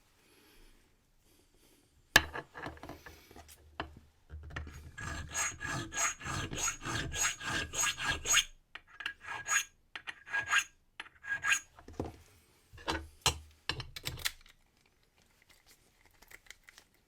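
Hand file rasping across a brass key blank in quick repeated strokes, with a slight ringing note on each stroke: filing down the marked cuts while impressioning a key for a wafer cam lock. A sharp click about two seconds in comes before the filing, and the strokes stop a few seconds before the end.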